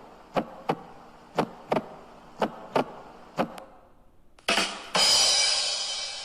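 Drum sound effect: sharp drum hits in pairs, about one pair a second, then a short hit and a long, loud crash that fades away.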